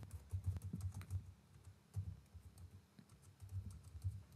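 Faint typing on a computer keyboard: runs of quick key clicks, with a short pause a little past the middle.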